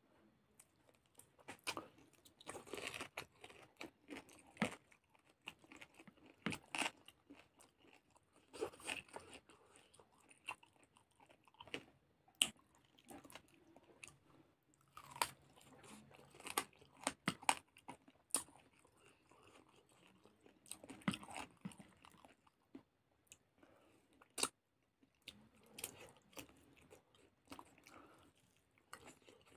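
Close eating sounds of a man eating a chicken leg with rice by hand: chewing and biting, heard as many irregular sharp clicks.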